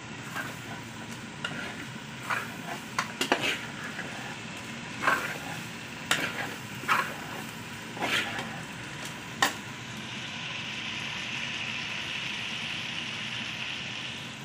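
Chicken and potato curry sizzling and frying in a pot, with a spoon knocking and scraping against the pot about a dozen times over the first ten seconds, then an unbroken sizzle to the end.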